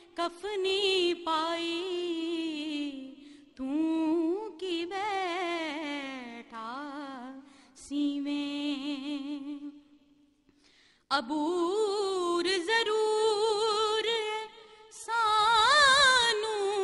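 A woman's solo voice singing a Punjabi Sufi kalam into a microphone, drawing out long notes with ornamented, wavering pitch. She breaks off for about a second a little past the middle, then carries on.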